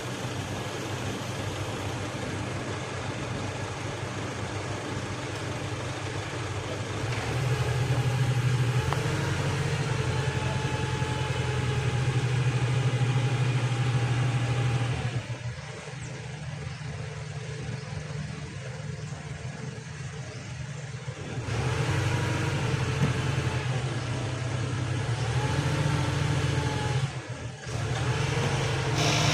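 An engine running steadily. It gets louder about seven seconds in, drops back for several seconds around the middle, then comes up again.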